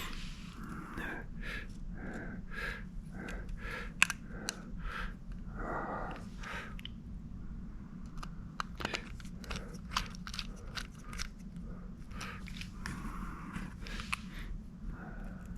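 Irregular clicks, scrapes and light rattles of small screws, metal parts and a screwdriver being handled while an opened external hard drive is reassembled, with one sharper click about four seconds in. A steady low hum runs underneath.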